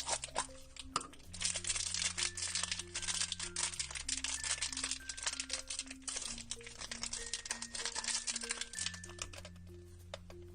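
Background music with a simple melody and bass line, over small plastic packaging crinkling as it is handled and opened; the crinkling dies away about nine seconds in.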